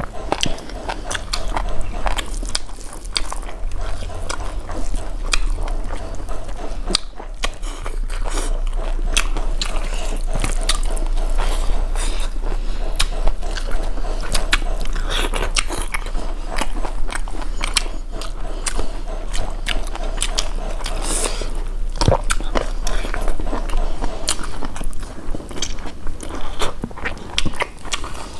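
Eating sounds from two people chewing and biting mouthfuls of beef curry and rice eaten by hand, with many sharp wet mouth clicks throughout.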